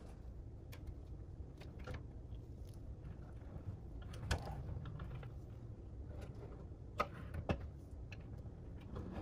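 A few sharp metallic clicks and clacks from a pressed-steel toy dump truck being handled, the loudest about four seconds in and twice about seven seconds in, over a steady low hum.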